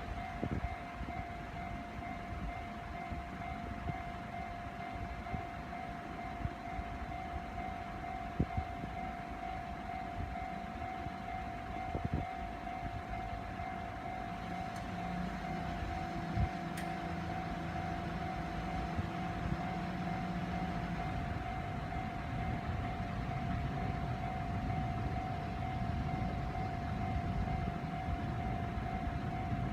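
Railway level-crossing warning bell sounding without a break as one steady tone, over a constant rumble. A low hum joins in from about 15 to 21 seconds in.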